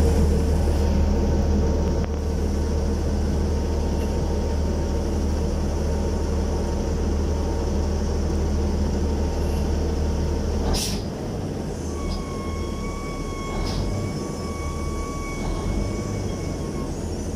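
Heavy crawler crane machinery running with a steady low rumble. There is a single knock about eleven seconds in, and shortly after it a thin steady whine that lasts about four seconds.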